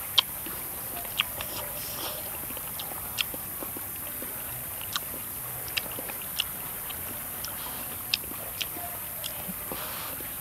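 Close-up eating sounds: a person chewing a mouthful of fried omelet, with short sharp mouth clicks and smacks every second or so over a steady faint hiss.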